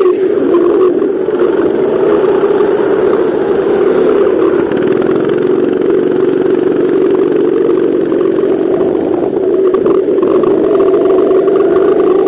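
Go-kart engine running hard, heard on board the kart, holding a steady high note. The engine speed dips briefly near the start and changes again about ten seconds in.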